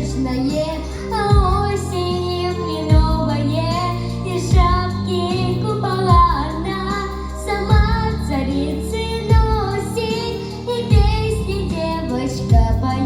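A young girl singing a pop song solo over a backing track, with a kick drum beating about every second and a half.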